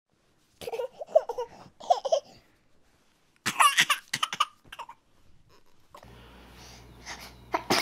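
A baby's short bursts of laughter and sneezes, in two groups, the second starting about three and a half seconds in. Near the end a faint steady hum comes in.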